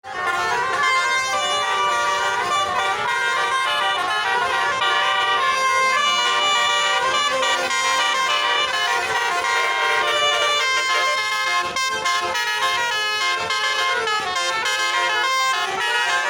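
Basuri telolet horn, a multi-tone electric vehicle horn, playing a melody: several horn tones at once, changing pitch in quick steps, without pause.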